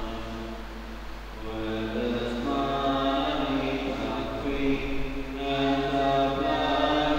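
A group of voices singing a slow communion hymn in long held notes, with a short pause between phrases about a second in before the next line begins.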